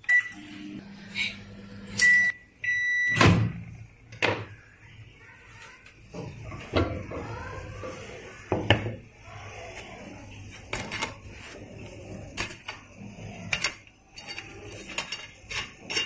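Microwave oven beeping several times as it is set to grill for three minutes, then a loud click. After that come scattered knocks and clatter as the door is opened and the metal tray of toasted bread is handled.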